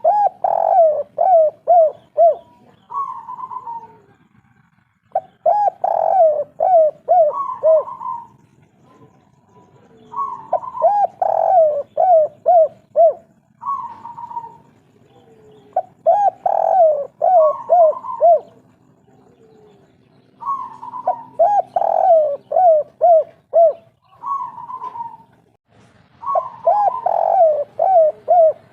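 Spotted dove (derkuku/tekukur) singing its 'kuk 3' cooing song: a phrase repeated about every five seconds, each a higher opening coo followed by a quick run of lower, falling coos and a closing coo.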